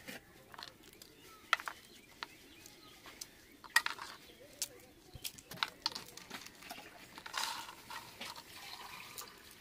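Hands mixing chopped cucumber, fried sweets and chickpea curry in a metal bowl: scattered light clicks and taps of food and fingers against the metal, with a brief rustle near the end.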